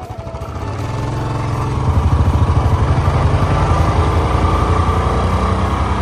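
Royal Enfield Bullet's single-cylinder engine running, getting louder over about the first two seconds and then holding a steady, pulsing beat; the rider says it is misfiring.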